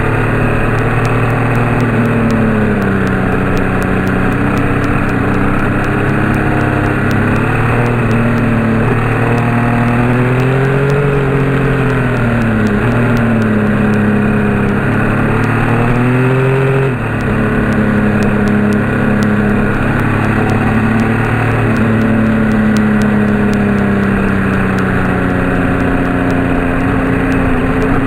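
Car engine running under way, its note climbing and falling as the vehicle speeds up and slows, dropping abruptly about seventeen seconds in.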